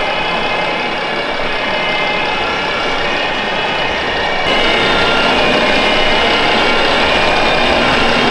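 Diesel truck engine sound idling from the model fire trucks' sound modules, with hall crowd noise behind it; it grows louder about halfway through.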